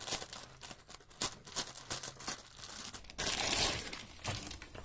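Clear plastic wrapping crinkling and crackling as a fabric handbag is pulled out of it and handled, with a longer, louder rustle about three seconds in.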